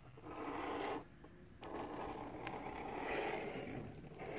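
Small electric motor and gear drivetrain of an Axial SCX RC crawler whirring under throttle as it climbs a dirt slope, in two bursts: about a second on, a short pause, then on again for about two and a half seconds.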